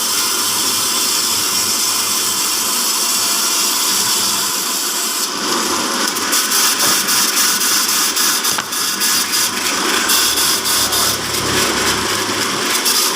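Horizontal band sawmill driven by a 5 HP electric motor, running steadily. About five seconds in it turns louder and rougher, with a rapid flutter.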